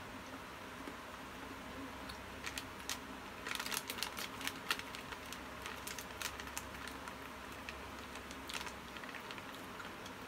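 A plastic snack pouch crinkling as it is handled: irregular sharp crackles and clicks, thickest a few seconds in, with a few more later on.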